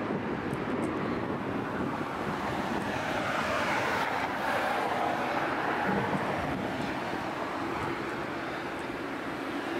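Steady hum of city street traffic, with one passing vehicle swelling louder about four to six seconds in and then fading away.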